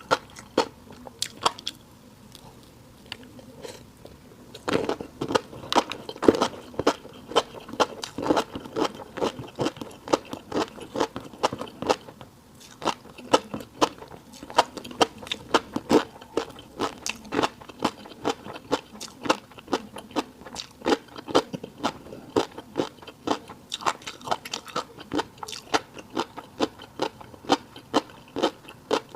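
Close-miked eating sounds: chewing mouthfuls of rice topped with fish roe, with many crisp clicks and crunches, several a second. There is a quieter pause about two to four seconds in, then the chewing comes back louder.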